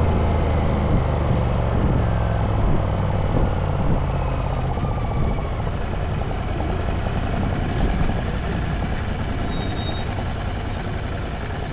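Royal Enfield Continental GT 650's parallel-twin engine running as the motorcycle rides, with road and wind noise. The engine note is strongest in the first couple of seconds, then eases off and the sound slowly fades as the bike slows.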